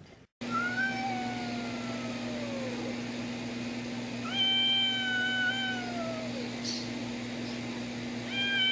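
Cat yowling: three long, drawn-out wails, each holding its pitch and then sliding down at the end, the third starting near the end. This is a cat's warning yowl at a dog facing it.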